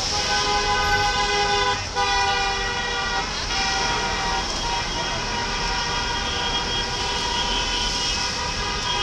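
Car horns honking in long, overlapping held tones, several at once, with a brief break about two seconds in, over the rumble of street traffic.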